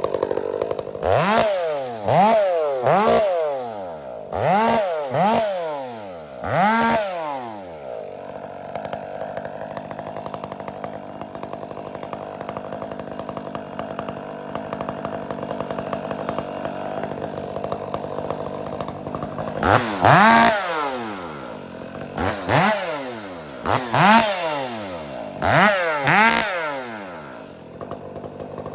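Two-stroke chainsaw idling and blipped to high revs and straight back down about five times, then a steady idle for about ten seconds, then another five quick revs before settling back to idle.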